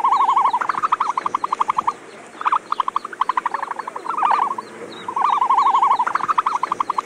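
Animal call sound effect: repeated bouts of fast, rattling trills, about a dozen pulses a second, each bout lasting up to about a second with short breaks between.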